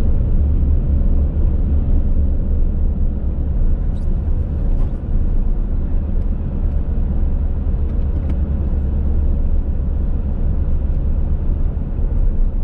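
Steady low road rumble inside a moving car's cabin: tyre and engine noise while driving, with a couple of faint ticks.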